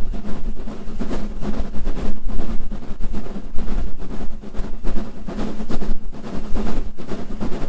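Steam locomotive S15 No. 506, a 4-6-0, working hard up a steep gradient, its exhaust pulsing unevenly over a constant low rumble. Heavy wind buffeting on the phone's microphone runs through it.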